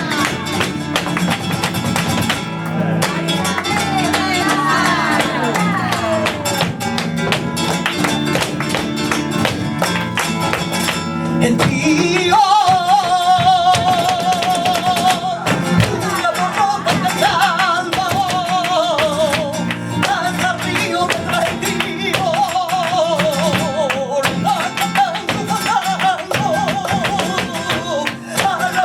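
Live flamenco fandango: Spanish guitar playing with dense, sharp percussive clicks throughout, joined about twelve seconds in by a wavering, ornamented melody line with vibrato.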